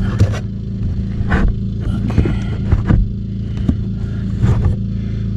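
A steady low hum runs throughout. Over it come scattered clicks and light knocks from hands working on water line fittings under an RV bathroom sink.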